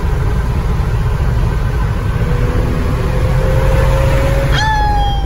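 A car driving, heard from inside the cabin: a loud, steady low rumble of engine and road noise, with a faint engine note slowly rising in pitch. Near the end, a short high-pitched sound cuts in.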